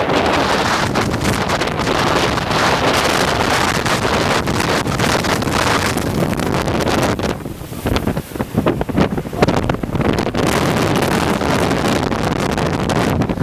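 Hurricane Sandy's storm-force wind blasting across the microphone in heavy gusts, easing briefly about seven seconds in before rising again.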